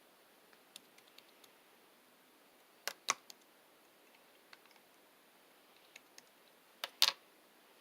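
Slime being played with by hand: scattered small clicks, then two loud double pops about three and seven seconds in.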